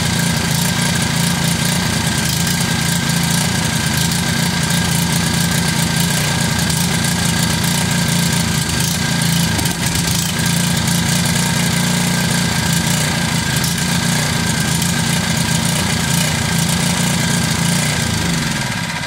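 Small gas engine running steadily on an electronic ignition that replaced its original magneto. In the last second or so it is shut off and winds down.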